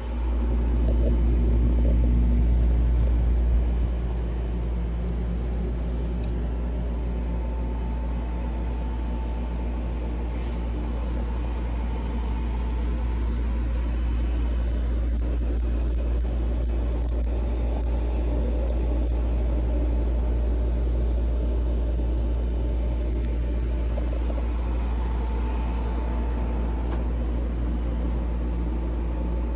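Steady low machine hum and rumble of a microgreen grow rack's automated equipment running, louder for the first few seconds and then settling to an even level.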